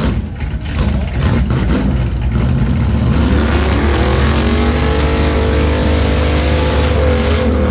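A motor vehicle's engine running and revving: its pitch climbs about three seconds in, then holds steady and high over a deep rumble.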